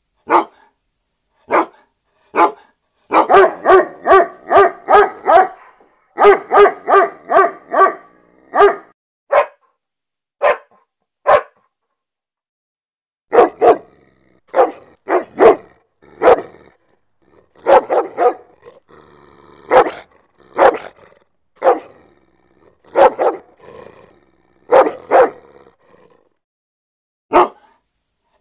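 Dog barking aggressively: single barks and quick runs of about three barks a second, broken by short pauses.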